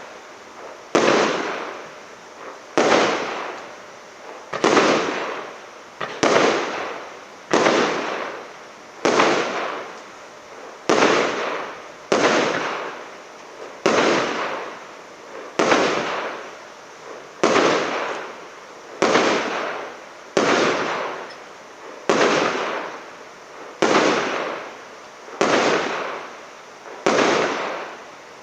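Firework battery (cake) firing its shots one after another at an even pace, about one every second and a half to two seconds, each a sharp bang that fades away over about a second.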